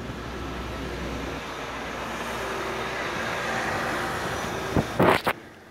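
Steady road and engine noise of a moving car. There are two short, loud knocks about five seconds in, and then the noise drops quieter.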